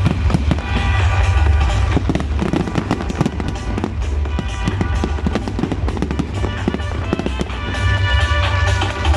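Fireworks going off in a rapid, dense run of bangs and crackles, over loud music with a heavy bass.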